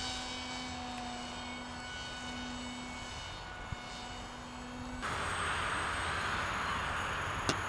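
Electric RC plane's motor and propeller in flight, a steady whine. About five seconds in the sound changes abruptly to a louder, even hiss, with a sharp click near the end.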